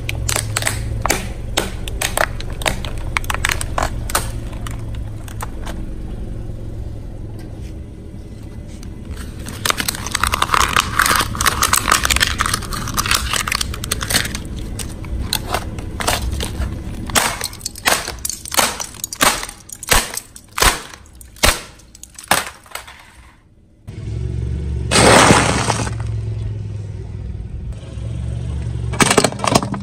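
A car tyre rolling over a thin white plastic face mask, the plastic cracking and snapping over the low rumble of the car. Later comes a run of separate sharp plastic cracks. After a brief silence the car's low running rumble returns, swelling loudly for a moment.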